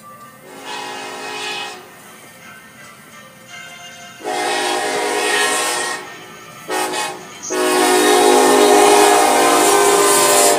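Diesel freight locomotive's air horn sounding the grade-crossing signal: long, long, short, long. Each blast is a steady chord, louder as the engine nears, with the final long blast the loudest and held as the locomotive reaches the crossing.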